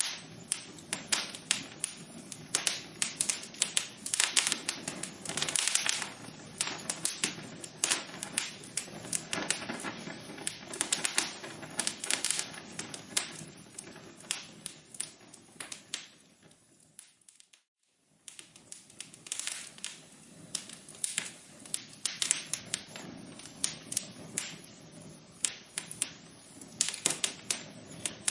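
Wood fire crackling in a fireplace: dense, irregular pops and snaps over a low hiss. About two-thirds of the way through it fades out to near silence for a moment, then the crackling starts again.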